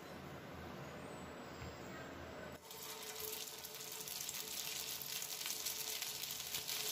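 Hot mustard oil in a frying pan starts sizzling suddenly about two and a half seconds in as a stuffed bread roll is dropped in, the crackling hiss growing louder as a second roll goes in.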